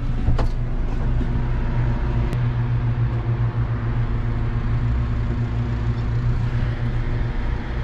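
A van's engine running with a steady low hum, with a light click or two in the first few seconds.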